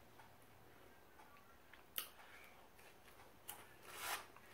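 Near silence broken by a sharp click about two seconds in, a fainter click later, and a short rustle near the end.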